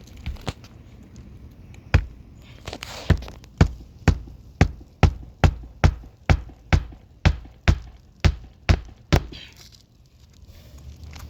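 Hammer driving a roofing nail through a shingle: one strike, then a steady run of about a dozen sharp blows at roughly two a second that stops near the end.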